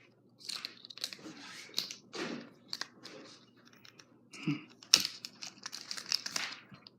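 Plastic packaging of a set of earbuds being opened by hand: irregular crinkling, tearing and clicking, with a sharper snap about five seconds in.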